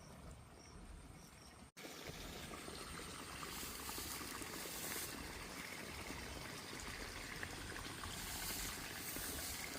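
Steady trickling of running water. In the first couple of seconds faint insect chirps repeat before the sound cuts abruptly to the water.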